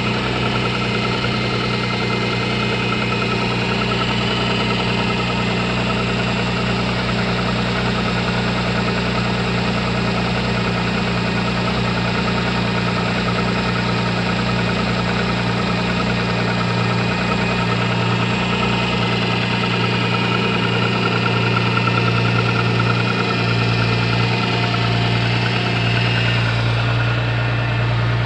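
MG ZS 180's 2.5-litre KV6 V6 engine idling steadily, with the engine knock the owner is recording.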